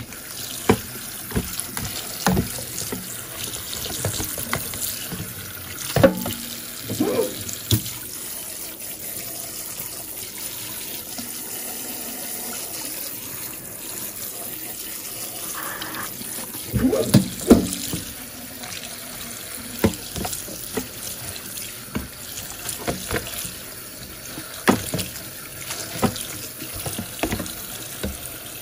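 Tap water running steadily into a sink onto cooked egg noodles in a plastic colander as they are rinsed. Scattered knocks and clatters come as the noodles are tossed, in clusters about six seconds in and again around seventeen seconds.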